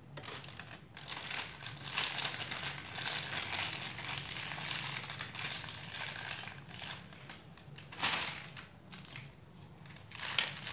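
Clear plastic piping bag crinkling as it is handled, in irregular spells with a short lull near the end.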